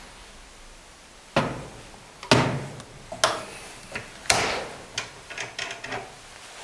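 Sharp metal clunks and clicks from a steel common rail injector clamping device being handled: its head swung round and its clamps set. About four louder knocks come roughly a second apart, starting about a second and a half in, followed by lighter clicks.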